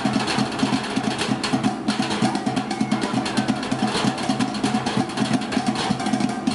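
Background electronic music with a fast, steady beat.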